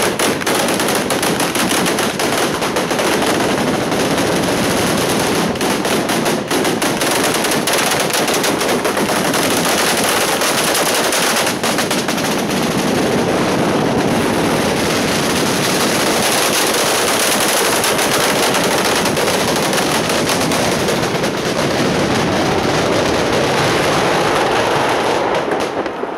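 Long strings of firecrackers going off in one continuous, dense crackle of rapid bangs that does not let up.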